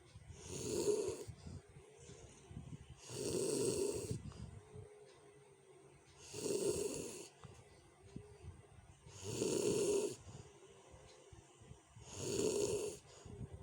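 A sleeping person snoring harshly: five loud snores at a steady pace, about one every three seconds, each lasting about a second.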